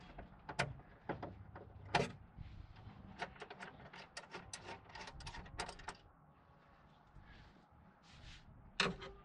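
Hand screwdriver working screws out of a TV wall mount: a few sharp metallic clicks, then a quick run of small ticks, about five a second, for a couple of seconds, then one louder clack near the end.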